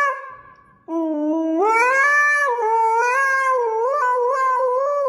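A pet animal's long, wavering, howl-like call. It breaks off just after the start and comes back about a second in, then holds with its pitch sliding up and down.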